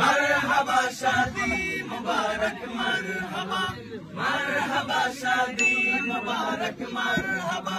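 A group of men singing an Islamic wedding song (gojol) together in a chant-like unison, with no instruments.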